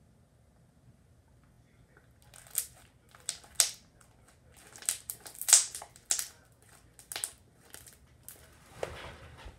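Slime being squeezed and kneaded in the hands, giving a run of sharp, irregular crackling pops and squelches as trapped air bubbles burst. It starts about two seconds in.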